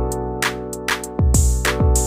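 Background music with a beat: deep kicks that drop in pitch, crisp hi-hat strokes and held chords over the top.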